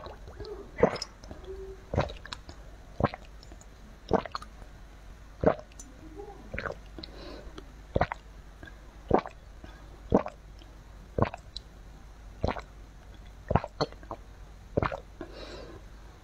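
A person gulping down a drink from a cup, picked up close by a clip-on microphone: a steady run of sharp swallowing clicks, about one a second, with faint slurping between.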